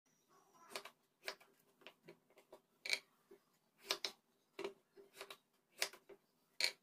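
Kitchen knife chopping peeled tinda (round gourd) into thick chunks on a wooden chopping board: a run of irregular sharp knocks of the blade through the gourd onto the board, about one or two a second.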